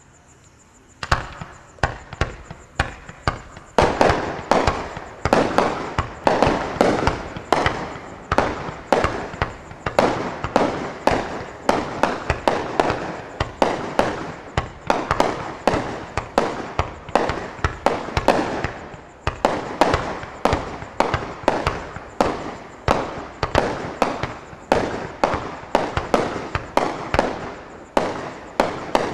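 A 49-shot 2-inch peony fireworks cake firing in quick succession, about two sharp bangs a second, each with a short echoing tail. The shots begin about a second in.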